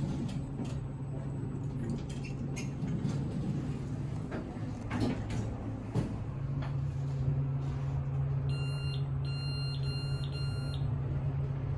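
Traction elevator car descending, heard from inside the car as a steady low hum that grows stronger about halfway through. There are a few light clicks and knocks in the first half, and a quick series of high electronic beeps near the end.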